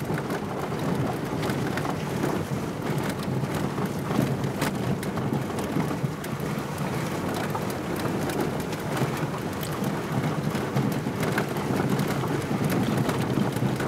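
Peugeot 306 rolling along a wet, stony dirt track, heard from inside the car: a steady rumble of tyres on gravel and puddles, with many small clicks and crackles from stones under the wheels.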